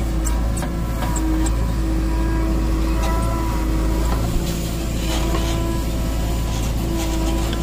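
JCB 3DX backhoe loader's diesel engine running steadily under load, with a whine from the hydraulics that starts and stops several times as the digging arm works.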